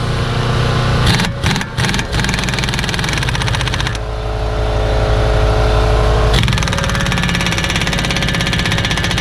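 Impact wrench tightening a 27 mm front axle nut on a 2009 VW Jetta: a few short bursts, then continuous rapid hammering for most of the time.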